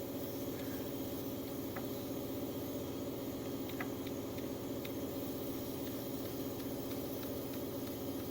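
Engine idling steadily, a low even hum, with a few faint ticks over it.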